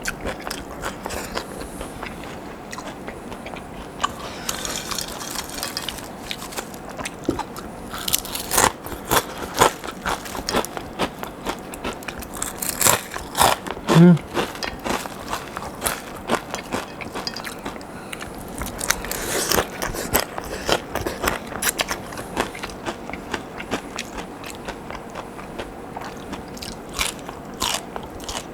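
Close-up eating sounds: crisp fried potato sticks crunching and being chewed, in irregular bites. There is a short low pitched sound about halfway through, at the loudest moment.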